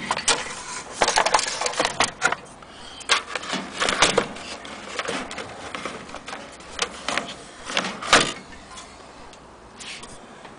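Irregular knocks, clicks and scrapes from handling a vintage magic lantern projector's sheet-metal body and brass fittings. The loudest knock comes about eight seconds in.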